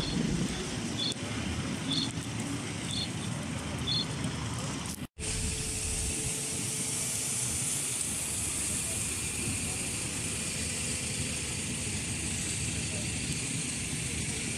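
Outdoor crowd ambience: a murmur of distant voices with four short high beeps about a second apart. After a cut about five seconds in, it gives way to a steady outdoor hiss.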